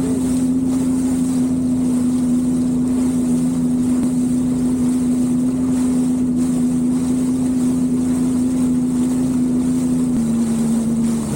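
Jet ski engine running steadily at cruising speed, a constant drone over wind and water rush; the engine note drops slightly near the end.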